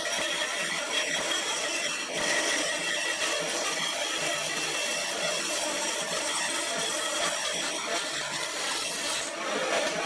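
A power tool running steadily, with a short dip about two seconds in and another near the end.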